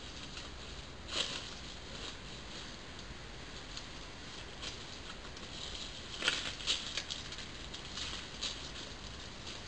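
Irregular soft crackles and rustles, loudest about a second in and again around six to seven seconds, over a steady faint hiss.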